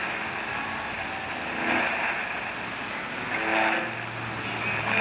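Pansori singing on a shortwave radio broadcast, faint and buried under heavy hiss and static with fading, with a few pitched swells of voice coming through the noise. It is played through a small portable receiver's speaker, and a low steady hum joins about four seconds in.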